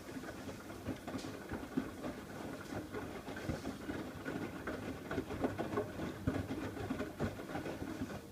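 Miele WKF120 washing machine drum turning during the final rinse of a 90° cottons cycle: wet laundry tumbling and rinse water splashing in an irregular patter of soft knocks. It stops suddenly near the end as the drum pauses before reversing.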